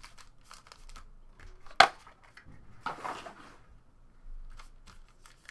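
Hands handling foil-wrapped trading card packs and a metal card on a table: scattered light clicks and a short rustle, with one sharp click about two seconds in.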